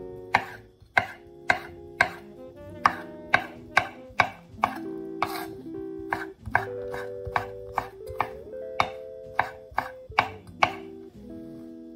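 Chef's knife chopping a bacon rasher into strips on a wooden cutting board: about twenty sharp knocks of the blade on the board, roughly two a second. Soft background music plays underneath.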